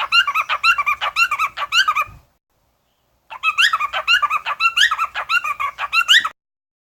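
Small pet bird chirping rapidly in short, quick, upward-sweeping notes. The chirping comes in two runs, with the sound cutting out completely for about a second between them.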